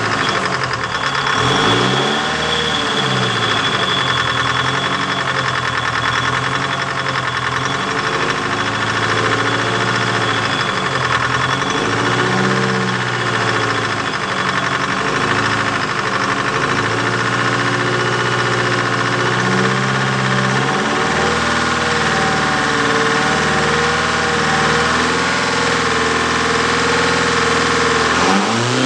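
Detroit Diesel 4-53T two-stroke turbocharged diesel running near idle, its revs swelling up and dropping back several times, then holding steady, and starting to climb right at the end.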